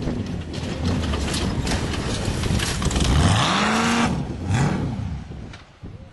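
Off-road race vehicle's engine revving as it passes, its pitch rising and falling, loudest about three to four seconds in, then fading away.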